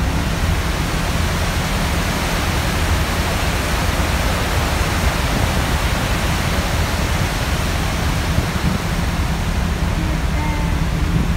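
Steady rush of a ferry's churning wake, with wind buffeting the microphone heavily in the low end.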